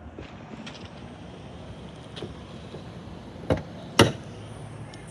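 Two sharp metallic clunks about half a second apart, the second louder, as the Holden Commodore VF's bonnet is released and lifted open, with a few faint ticks before them.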